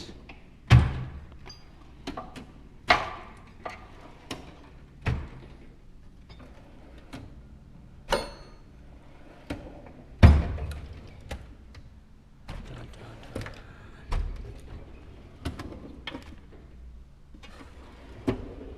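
Metal hand tools clanking and toolbox drawers thudding as a toolbox is sorted. The knocks are irregular, coming every second or so, with the heaviest thunks near the start and about ten seconds in.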